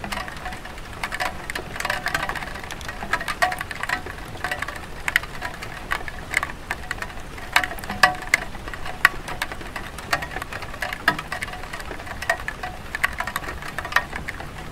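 Light rain on a clay tile roof: a steady patter with irregular, sharper drops and drips tapping at random throughout.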